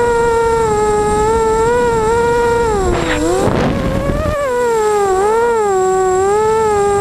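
Emax Nighthawk racing quadcopter's 2280KV brushless motors with 5040 props whining, the pitch wavering constantly with throttle. About three seconds in the pitch drops sharply and a rush of noise comes through for a second or so before the whine climbs back, as the quad cuts throttle and punches out of a hard 180° turn.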